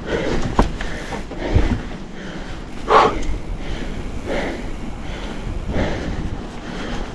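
Mountain biker breathing hard, a forceful exhale roughly every second and a half, the loudest about three seconds in, over wind rumble on the camera microphone. A couple of sharp knocks from the bike on the trail come in the first two seconds.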